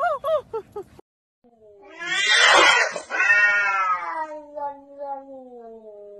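About a second of quick, short, high cries cuts off. Then a cat gives one long yowl that swells, then slowly falls in pitch: a threat yowl from a cat squaring up to another cat.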